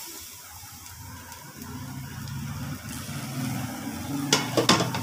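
A low rumble, then near the end a quick run of scrapes and knocks of a spatula against a steel frying pan as potato and chicken filling is stirred.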